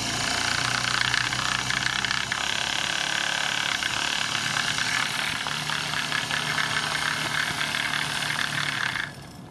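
Stuart 10V single-cylinder vertical steam engine running flat out on 25 PSI steam, its exhaust beats coming too fast to count and blending into a steady hiss through the chuff pot. It is cut back sharply about nine seconds in as the steam valve is closed.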